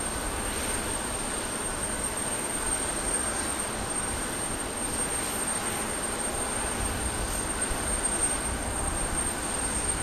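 Steady jet whine and rumble from a Boeing 737-800 during pushback: a thin, even high-pitched tone over a broad hiss, holding level without spooling up or down.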